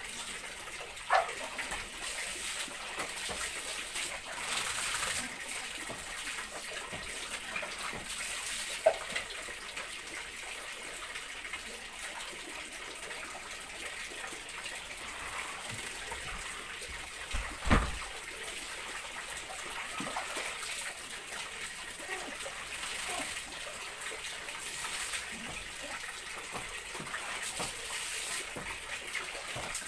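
Water pouring and splashing on a tiled bathroom floor during a dog bath, with a few scattered knocks, the loudest a dull thump about 18 seconds in.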